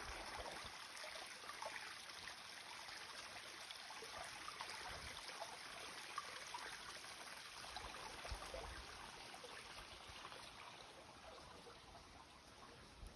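A small stream of water running and trickling steadily, growing a little fainter near the end.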